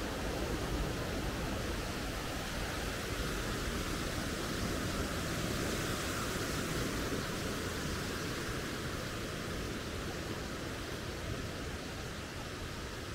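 A small rocky stream running, a steady rush of water that grows a little fainter near the end.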